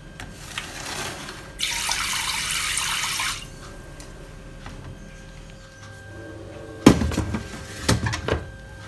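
Water running from a kitchen tap for about two seconds while rice is washed in a metal rice-cooker pot. Near the end the pot knocks twice as it is set down into the electric rice cooker.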